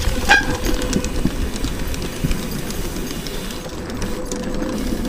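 Mountain bike rolling over a wooden plank boardwalk: a steady rolling rumble with quick rattling clicks as the tyres cross the plank joints.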